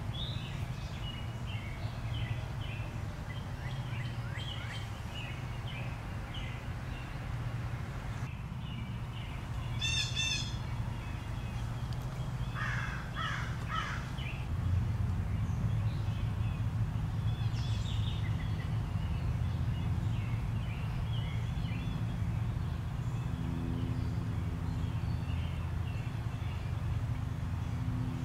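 Birds calling and chirping, with a quick run of repeated calls about ten seconds in and a cluster of harsher calls a few seconds later, over a steady low hum.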